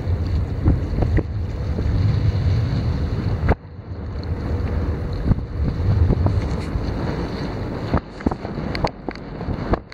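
Wind buffeting the microphone on a boat at sea, over a wash of water and waves. The sound drops suddenly about a third of the way in, and a few sharp knocks come near the end.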